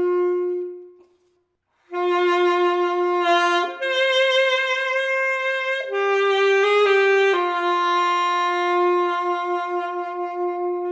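Yamaha YAS-200AD alto saxophone playing slow, sustained notes. A held note dies away about a second in; after a short pause, a slow phrase steps up through a few notes and settles back on a long held note that fades near the end.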